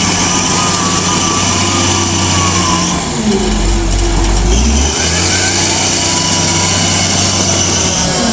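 Diesel engine of a Lonking CDM833N wheel loader running under load as the boom lifts a full bucket of sand, its note dropping and recovering about halfway through, with a high wavering whine over the first two seconds or so.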